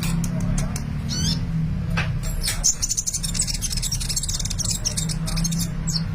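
Kolibri (sunbird) singing hard, a rapid run of high thin chirps and twitters that packs more densely in the second half, over a steady low hum.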